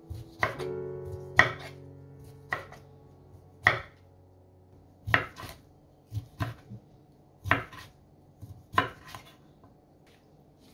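Kitchen knife slicing whole cucumber pickles into rounds on a wooden cutting board: about ten sharp chops of the blade through the pickle onto the board, irregularly spaced at roughly one a second, some in quick pairs.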